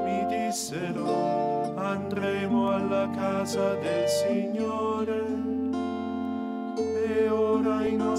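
Liturgical hymn sung by male voices, accompanied by a harp playing held chords over low bass notes.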